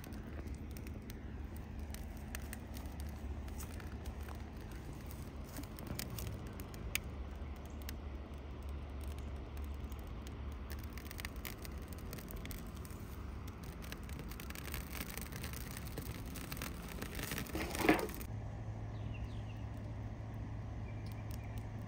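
Campfire of kindling and Spanish moss catching in a metal fire ring: scattered faint crackles and clicks over a low wind rumble. About 18 seconds in there is one short, loud sweep that rises and falls in pitch.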